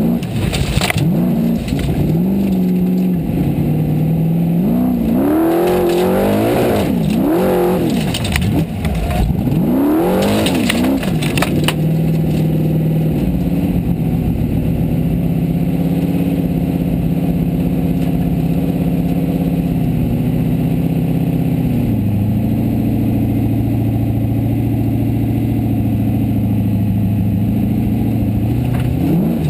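In-car sound of a Formula Offroad buggy's engine at racing revs. For the first dozen seconds the revs swing up and down again and again, with a few clattering knocks. Then it holds a steady high note, which steps down once a little past the middle.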